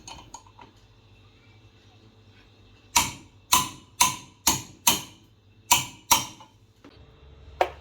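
About seven light hammer blows on metal, sharp and ringing, coming in quick succession about three seconds in: tapping the direct-drive motor's rotor retaining nut tight.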